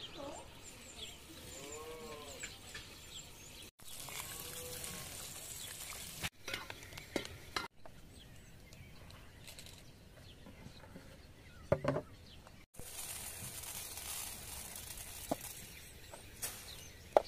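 Raw rice grains poured from a cup and spread over a wide aluminium tray, a fine rattling hiss of grains near the end. A sharp metal knock comes past the middle, and a couple of animal calls near the start.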